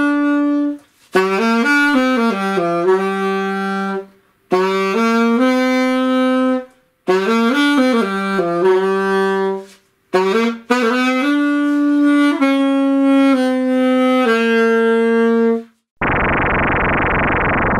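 Alto saxophone played solo: about five short phrases of held notes with brief pauses between them. The playing stops near the end, and a steady synthesizer tone starts.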